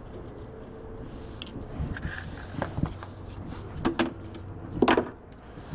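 A handful of short knocks and clicks, like things being handled and set down, over a steady low hum; the loudest knock comes near the end.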